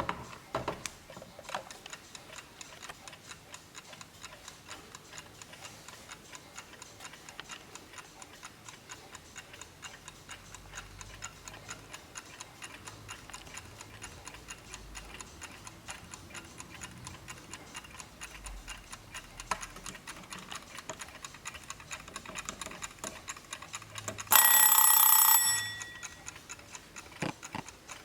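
A 1950s Junghans Max Bill ceramic 8-day wall clock ticking steadily. Near the end its kitchen-timer bell rings loudly for about a second and a half, then the ticking carries on.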